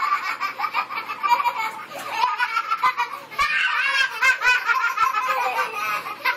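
Three young boys laughing hard together, their giggles and belly laughs overlapping. The laughter dips about two seconds in and swells again from about three and a half seconds.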